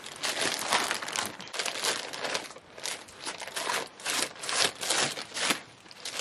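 Plastic poly mailer bag crinkling and rustling as it is handled and cut open with scissors, in an irregular run of crackles.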